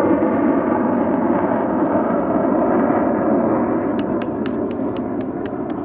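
Jet noise of a BAC Strikemaster's single Rolls-Royce Viper turbojet in a display pass, a steady rushing roar that slowly fades. About two-thirds of the way in, a quick run of sharp clicks, about four a second, sounds over it.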